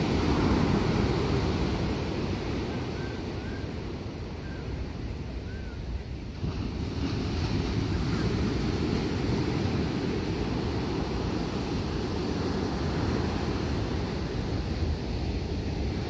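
Ocean surf breaking and washing up the beach, with wind buffeting the microphone as a steady low rumble. A few faint short chirps sound between about two and six seconds in.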